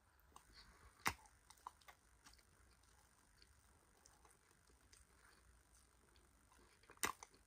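Faint clicking and crackling of a mouthful of starch powder being chewed, with two sharper clicks, one about a second in and one near the end.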